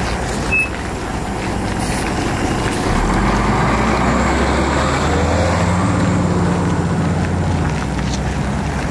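City bus running, heard from inside the cabin: steady engine and road noise that grows louder about three seconds in as the bus pulls harder, then eases off near the end.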